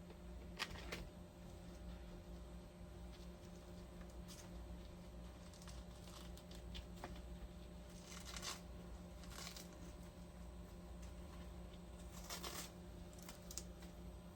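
Faint rustling and handling sounds, a few short scrapes scattered through, over a steady low electrical hum.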